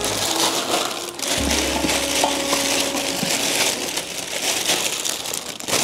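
Makeup products and their containers clattering and clinking continuously as they are handled and sorted.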